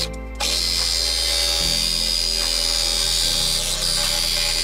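A cordless power tool cutting through the van door's sheet-metal panel with a steady high whine, stopping briefly at the start and resuming about half a second in, over background music with slow held bass notes.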